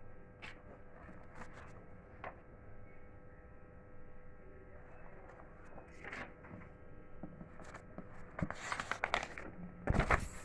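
Paper sheets and plastic wrapping rustling and crinkling as they are handled, with scattered small clicks; the loudest crinkling comes near the end.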